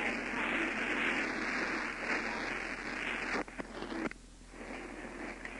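Steady static hiss on a recorded communications line, broken by a few clicks about three and a half seconds in; the hiss then drops briefly before returning.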